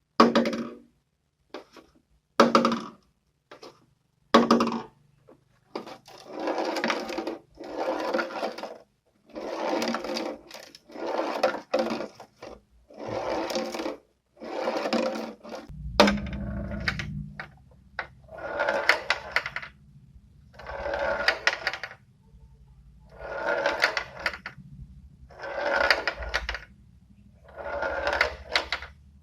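Beads rolling and rattling across a plastic tray. A few sharp clatters come in the first seconds, then repeated rolling passes about a second long, one every second and a half to two seconds.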